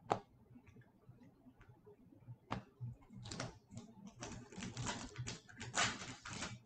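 A sharp tap just after the start and another about two and a half seconds in, then a foil trading-card pack wrapper crinkling and crackling as it is handled and torn open, busier towards the end.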